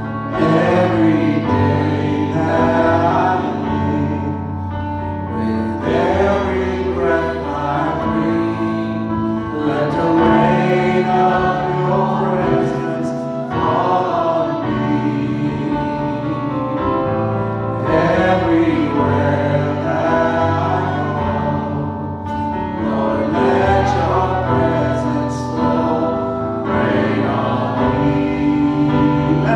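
Christian worship music: voices singing a gospel-style song in phrases over an instrumental accompaniment that holds long low notes.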